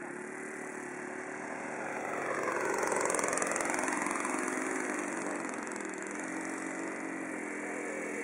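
ASP 91 four-stroke glow engine of a radio-controlled P-47 Thunderbolt model running at low throttle as the plane taxis after landing. About three seconds in it gets louder and its pitch dips and comes back up as the plane turns, then it settles to a steady idle.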